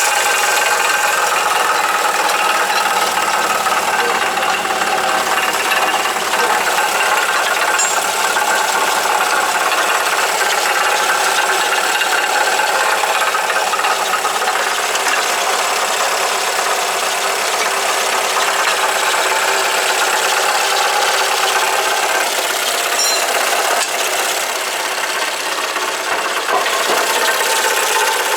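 Alfa Romeo GT 2.0 JTS four-cylinder petrol engine running, heard from underneath the car, with a knocking rattle whose source has not been found. The mechanic first took it for something inside the engine, then suspects the front or the exhaust.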